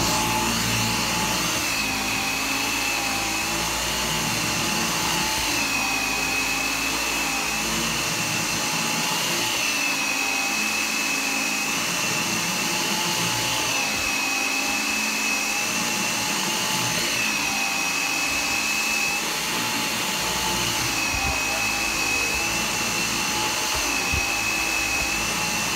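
G-Tech AirRam 2 cordless upright vacuum cleaner running on a thick-pile carpet. It gives a steady high whine that dips slightly in pitch every few seconds.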